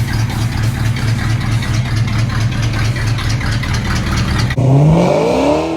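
Engine running steadily with a fast, even firing pulse. After a sudden cut near the end, an engine revs up and back down.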